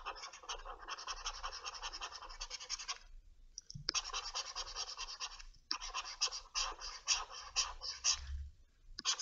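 Scratchy rubbing of a pointing device dragged over its pad in quick strokes, in stretches with a pause about three seconds in and a brief break near six seconds.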